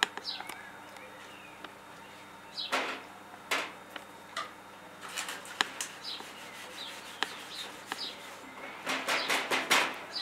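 A spatula scraping cake batter out of a ceramic bowl into paper colomba moulds, then the paper moulds rustling and crinkling as they are handled, most densely near the end. Short high bird chirps sound now and then.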